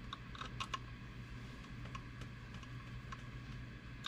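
Scattered light clicks and taps of small metal parts and hand tools being handled, a quick cluster of them in the first second, over a steady low hum.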